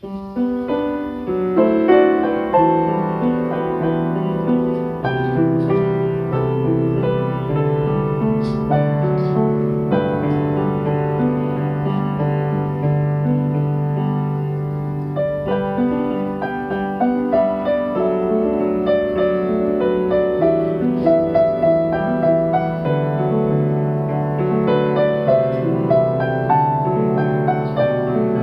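Solo piano playing a gentle melody over chords and held bass notes.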